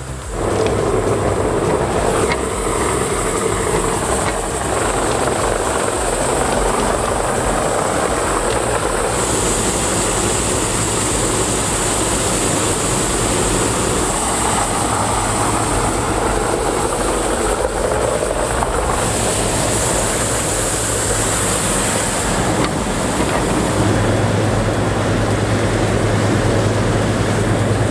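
Morbark 2755 flail chipper running steadily while it processes whole trees into chips, a dense, loud machine noise over a constant low engine hum. A high hiss switches on and off several times, and the hum grows louder near the end.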